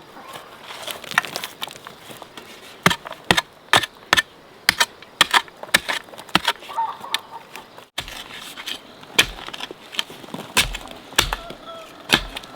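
A run of sharp, irregular knocks, roughly one to two a second, broken briefly by an abrupt cut about two thirds of the way in.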